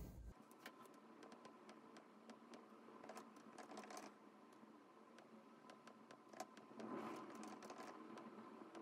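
Faint typing on a laptop keyboard: irregular key clicks, coming in a quicker flurry about seven seconds in.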